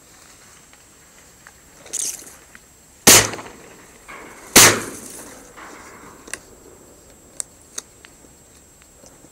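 Two shotgun shots about a second and a half apart, each a sharp blast with a short echoing tail.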